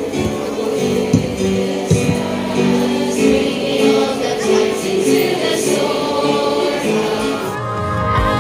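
A group of voices singing a Christian hymn together, choir-style, with long held notes. About three-quarters of the way through the sound cuts abruptly to different music.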